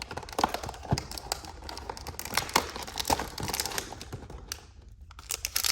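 Irregular quick clicks and taps of hands handling cardboard and plastic toy packaging, with a quieter spell near the end.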